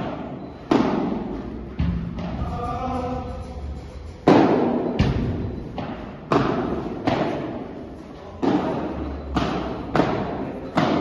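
Padel rally: the ball is struck by rackets and bounces off the court and glass walls. There are about ten sharp hits at an irregular pace, each followed by a long echo in the large hall.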